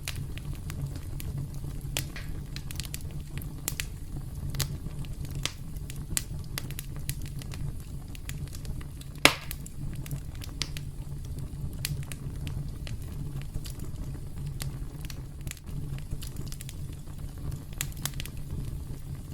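Campfire crackling: scattered sharp pops and snaps over a low, steady rumble, with one much louder pop about nine seconds in.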